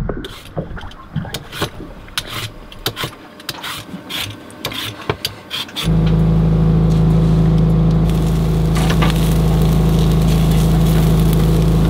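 Scattered irregular clicks and taps, then, about six seconds in, the steady hum of a sailboat cabin's air conditioner starts abruptly and runs on with a strong low drone.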